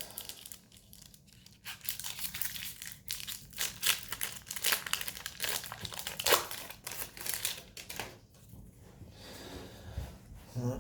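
Wrapper of a 1992-93 Upper Deck basketball card pack being torn open and crinkled: a dense run of sharp crackles that thins out near the end.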